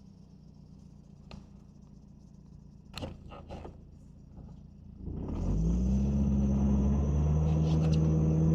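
Jeep Wrangler TJ's engine running low with a few knocks, then about five seconds in it revs up and holds high revs under load as it tows a stuck car on a rope through snow.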